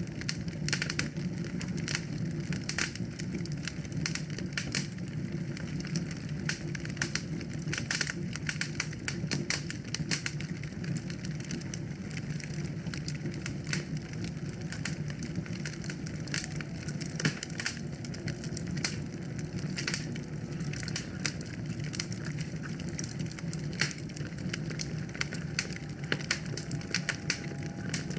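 Wood fire crackling in a fireplace: constant sharp snaps and pops over a steady low rush of flame.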